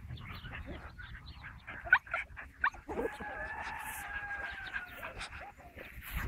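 Border collie puppies whimpering and yipping in play: a few short squeaky yips, then one long whine lasting about two seconds near the middle.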